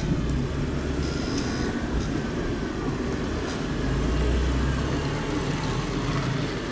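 Road traffic passing close by: motor vehicles driving past with a steady low rumble that swells around the middle.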